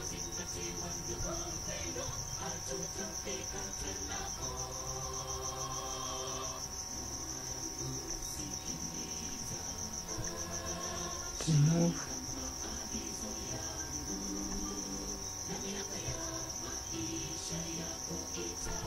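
A cricket trilling steadily at a high pitch, with a short low thump a little past halfway through.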